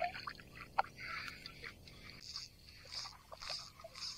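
Small splashes and drips of water for the first two seconds. Then comes a faint, even swishing about twice a second, the fly line being stripped in through the angler's hand and the rod guides.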